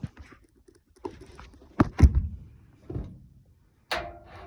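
Several knocks and clatters from hands working on metal furnace parts, the loudest about two seconds in and the last one ringing briefly.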